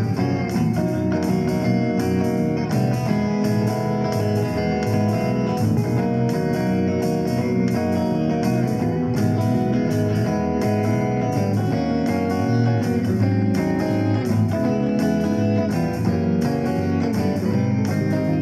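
Instrumental music led by guitar, with plucked and strummed notes over a bass line and a steady rhythm.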